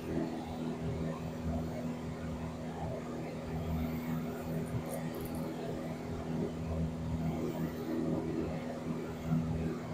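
Piper PA-28 Warrior's four-cylinder piston engine and propeller droning steadily in cruise, heard inside the light aircraft's cabin.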